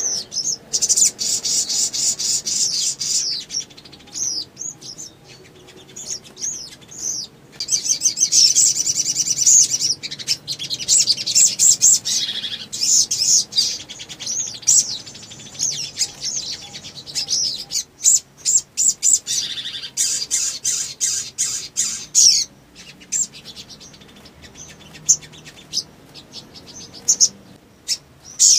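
Caged sogon (sunbird) singing: long runs of rapid, high twittering and chattering notes, broken by short pauses. This is the sustained 'nembak panjang' song that keepers use to stir other sogon into singing.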